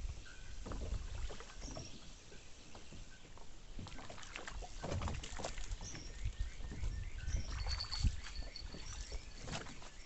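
Kayak paddling: irregular paddle strokes, splashes and knocks against the hull, over a low rumble.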